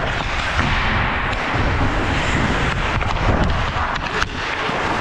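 Ice hockey skates scraping and carving on the ice, with wind rumble on a helmet-mounted camera's microphone. A few sharp clacks of stick on puck, the sharpest a little after four seconds in.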